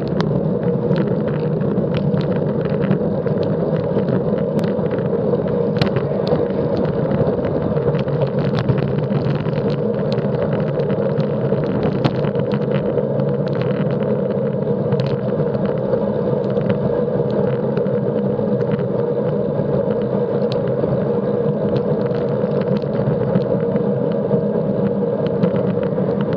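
Steady rumble of wind buffeting and road noise at a bicycle-mounted action camera's microphone while riding along a street, with scattered sharp clicks and rattles throughout.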